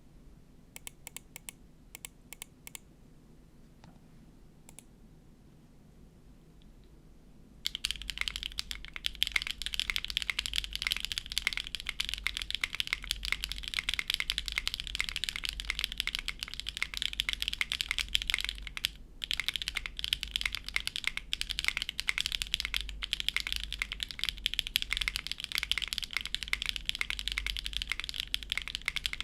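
Mechanical keyboard typing on a Neo65 with HMX Cheese switches on a carbon fibre plate, gasket-mounted with no foam, and GMK keycaps. A few scattered keystrokes come first, then from about eight seconds in steady fast typing with a high-pitched clack, broken by a short pause about two-thirds of the way through.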